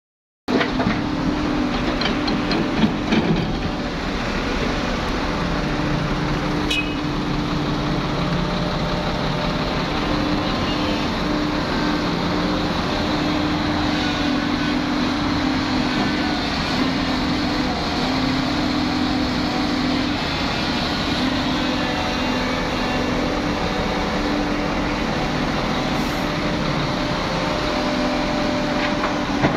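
Hyundai crawler excavator's diesel engine running steadily as it digs, its tone shifting as the work goes on, with a few short knocks around three and seven seconds in.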